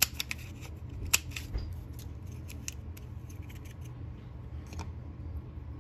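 Handheld star craft punch clicking as it punches stars out of cardstock: a few sharp snaps in the first second or so, the loudest about a second in, then lighter clicks and paper handling, with one more click near the end.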